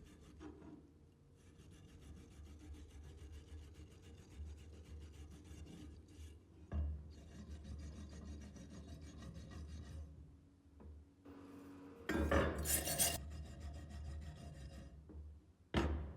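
Rusty machete blade being worked by hand with an abrasive tool: a steady rasping scrape, louder for about a second around twelve seconds in. Sharp knocks come about seven seconds in and again near the end.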